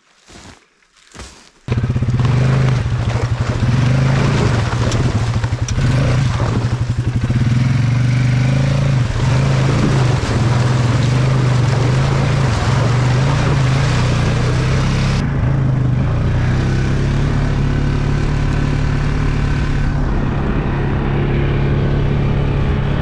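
Faint footsteps, then from about two seconds in an ATV (quad) engine running loud and steady as the quad is ridden over rough ground, recorded close to the machine.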